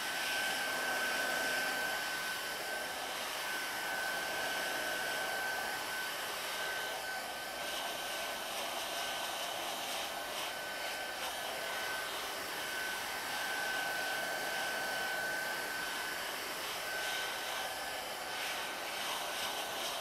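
Hot-air heat gun blowing steadily, a constant rushing hiss with a thin, steady high whine, used to shrink a molded heat-shrink cable boot.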